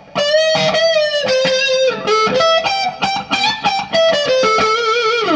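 Gibson Les Paul electric guitar played through an amp: a single-note lead melody of picked notes, the held ones with vibrato, ending with a note sliding down.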